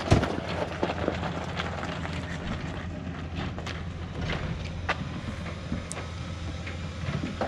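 A vehicle engine idling steadily, with a sharp knock right at the start and scattered clicks and clunks.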